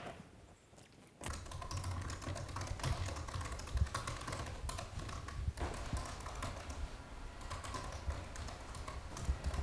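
Rapid typing on a laptop keyboard: a dense run of quick key clicks that starts about a second in, after a short quiet stretch.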